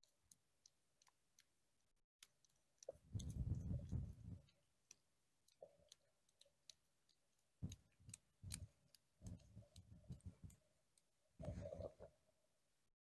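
Faint clicks and short clusters of dull, muffled rustling thumps from an angler handling a small winter ice-fishing rod at the hole. The louder clusters come about three seconds in, around the middle, and near the end.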